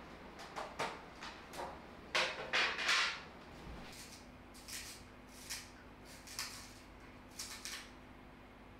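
A few clicks and a louder scraping clatter about two seconds in as a metal tin of colored pencils is handled. Then a colored pencil is sharpened in a small handheld sharpener, with several short rasping strokes.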